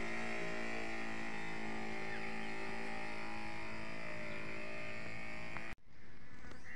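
Steady hum of a knapsack crop sprayer's pump, running while the crop is sprayed. It cuts off abruptly about six seconds in, leaving a much quieter outdoor background.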